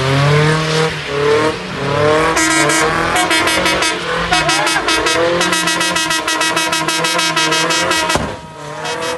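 GAZelle light truck's engine revving hard, rising and falling in pitch while it does donuts, with tyre noise. From about two seconds in the engine holds a steady high pitch with a rapid, even stutter, then drops away near the end.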